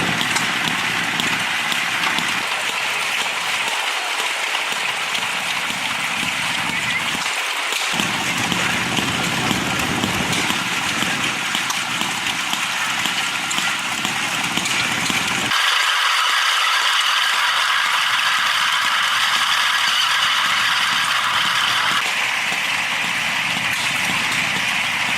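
Antique small stationary gas engines running with a steady mechanical rattle and clatter. The sound changes abruptly about two-thirds of the way through and again near the end.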